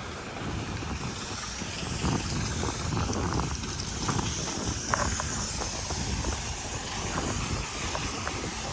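Steady low rumbling background noise with a few light clicks and knocks.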